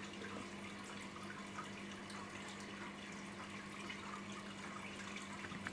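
Faint steady running and trickling water from a marine aquarium's circulation, with a steady low hum underneath.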